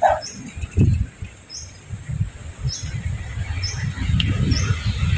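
A bird repeating a short, high chirp about once a second, over a low, uneven rumble.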